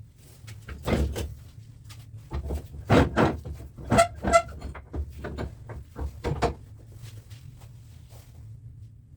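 Irregular knocks and clinks of tools and metal parts while an electric fan motor is taken apart for its copper windings. Two of the clinks, about four seconds in, ring briefly.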